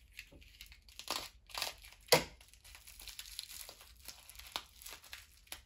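Paper packaging crinkling and rustling in short irregular crackles as an item is unwrapped, with one sharper crackle about two seconds in.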